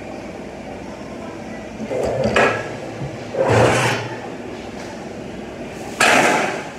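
A welded sheet-metal piece being handled and set down on a metal welding bench: three clattering metal clanks, the last one sudden with a short ring after it.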